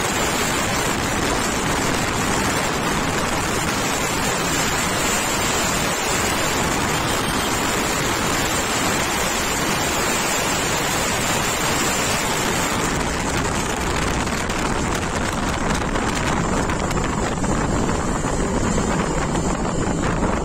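Wind rushing over the microphone of a Suzuki V-Strom 250 motorcycle running flat out at about 140 km/h, a steady rush of noise. The rush thins out over the last several seconds as the bike slows down.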